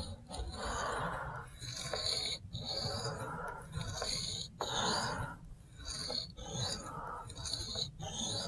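Cruwear steel blade of a Spyderco Shaman stroked freehand across a wet sharpening stone, a rasping scrape repeated about once a second.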